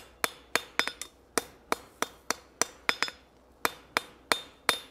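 Hand hammer striking a red-hot steel tong blank on an anvil in a quick, even series of blows, with a ringing note after each strike, hammering a twist out of the piece.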